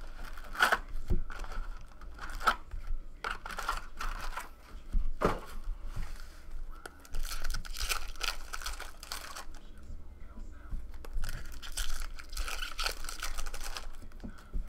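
Foil trading-card packs being torn open and crinkled by hand, with irregular rips, rustles and small clicks.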